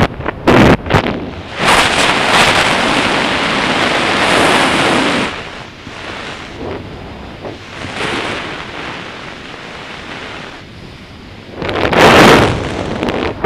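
Wind buffeting the jumper's camera microphone during a parachute descent under an open canopy, in uneven gusts with a long loud surge about two seconds in and another near the end.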